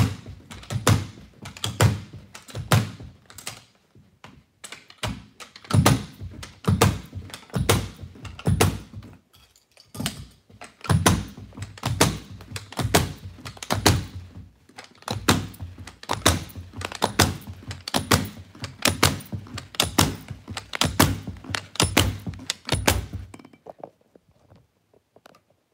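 Carpet knee kicker struck again and again by the installer's knee, giving repeated dull thumps about one or two a second, then stopping near the end. Each kick stretches the carpet along the wall and hooks it onto the tack strip.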